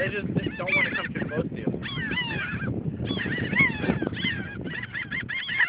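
A flock of gulls calling over and over, many arched calls overlapping each other.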